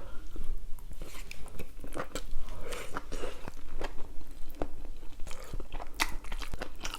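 Close-miked biting and chewing of noodles topped with grilled pork intestine and Vienna sausages, with many short wet clicks and crunchy crackles.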